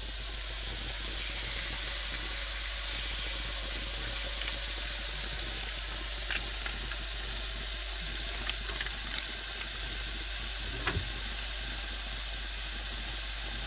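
Diced chicken sizzling as it fries in a pan while curry paste is spooned in. A few light taps stand out over the sizzle in the second half.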